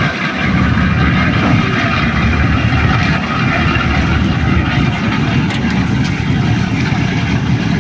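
An engine running steadily at a constant speed, a dense low drone with no changes in pitch.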